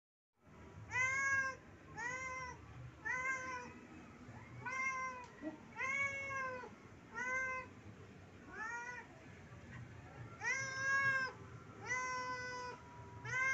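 Domestic cat meowing over and over, about ten meows roughly one a second, each rising then falling in pitch: a cat begging its owner for food.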